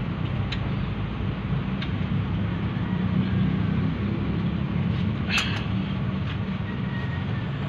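An engine running steadily with a low, even hum, and a few sharp metallic clicks over it, the loudest about five seconds in.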